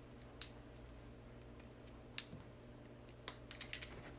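Faint, scattered clicks and taps, more of them near the end, from hands working at a small wooden nesting doll while trying to twist it apart.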